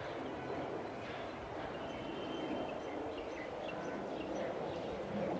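City street ambience: a steady murmur of traffic and distant voices, with a few faint high chirps.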